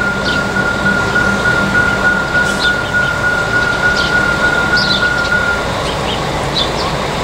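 Level-crossing electronic warning bell sounding a steady high tone while the crossing lights flash after a train has cleared, cutting off about five and a half seconds in.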